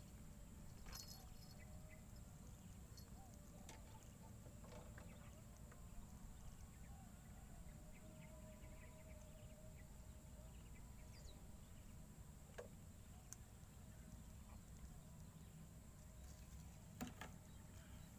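Near silence: faint outdoor background with a low rumble and a few scattered small clicks and taps.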